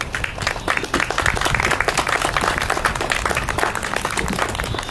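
A small group of people applauding, the clapping growing fuller about a second in.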